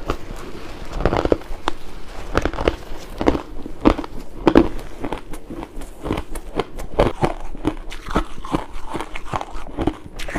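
Pink ice being chewed and bitten: a run of irregular crunches and cracks as the ice breaks between the teeth, a few every second.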